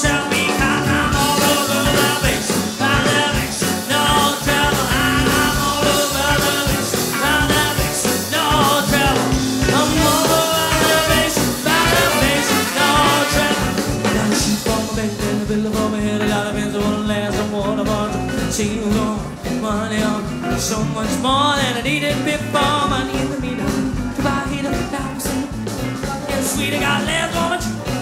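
A swing band playing, with a steady beat under melody lines that slide and bend in pitch.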